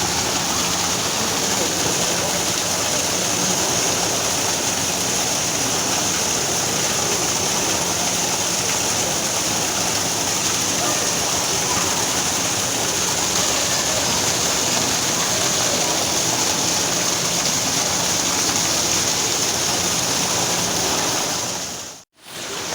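Waterfall rushing, a steady even roar of falling water that briefly cuts out near the end.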